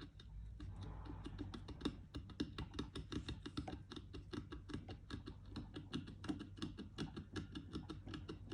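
Rapid, irregular light clicking and tapping, several clicks a second, from hand tools working on the kettle's small terminal screws and contacts as the terminals are tightened.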